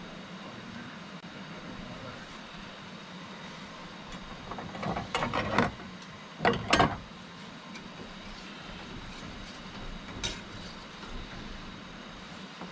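Portable camp stove burner running with a steady hiss under a pot of rice. A burst of metal clatter and scraping from cookware and a utensil comes about halfway through, and a light click near the end.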